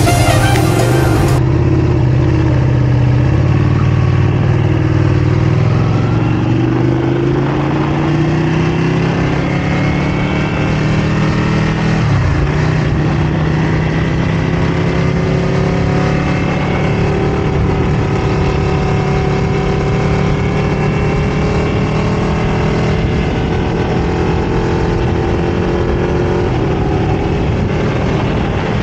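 Ducati Panigale V4 superbike engine and exhaust under way, its note climbing steadily as it accelerates. It drops once about twelve seconds in at an upshift, then climbs slowly again.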